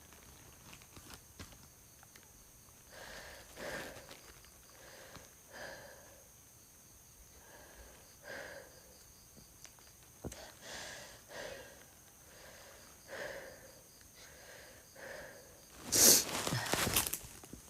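A woman breathing heavily and sniffing in short breaths every second or two, then a loud, harsh cough near the end.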